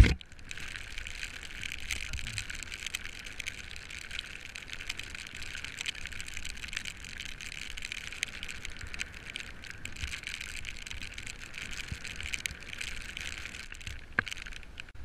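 Road bike rolling fast over wet asphalt: a steady hiss of the tyres on the wet road surface, with a low rumble from the road underneath.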